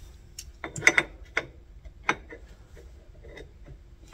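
Metal parts of a lathe-style work-holding chuck clinking and knocking as they are handled and fitted together by hand: a quick pair of sharp clicks about a second in, then single knocks, over a faint steady hum.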